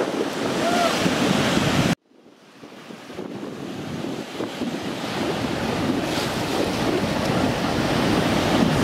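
Surf breaking on rocks, mixed with wind buffeting the microphone. The sound cuts out abruptly about two seconds in and fades back up over the following few seconds.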